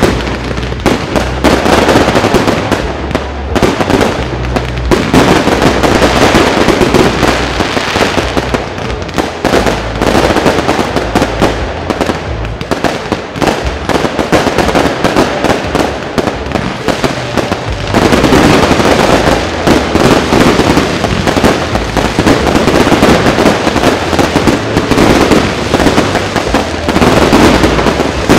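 A fireworks display: a dense, unbroken barrage of shell bursts, bangs and crackling, growing thicker and louder about two-thirds of the way through.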